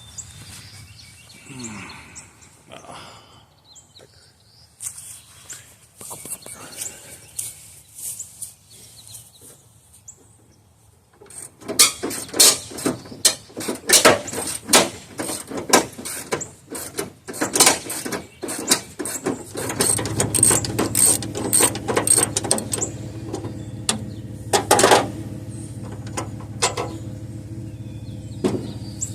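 Socket ratchet clicking in quick runs of strokes, turning out a truck's fender bolts. The clicking starts about a third of the way in, and a steady low hum runs underneath from about two-thirds through.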